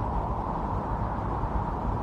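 Strong wind blowing steadily in a snowstorm, a dull, even noise with no gusts or breaks.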